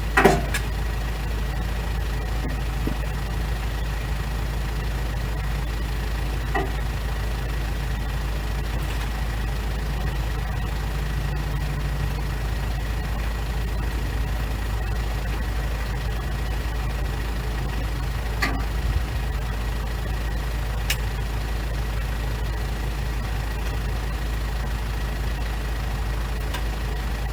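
Engine idling steadily with a low rumble; a single clunk sounds just after the start, and a few faint knocks follow.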